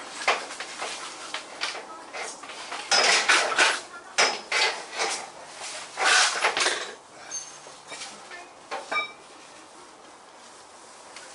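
Irregular metallic clanking and rattling as hand tools and steel parts are picked up and handled, with a few brief ringing pings of struck metal near the end.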